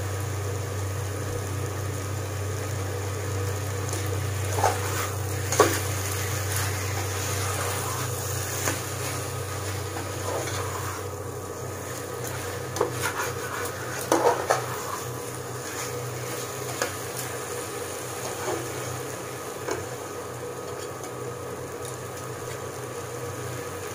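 Steel spatula stirring and scraping chicken masala in a nonstick kadai, with a steady frying sizzle and scattered knocks of the spatula on the pan, busiest about five seconds in and again around fourteen seconds. A steady low hum runs underneath.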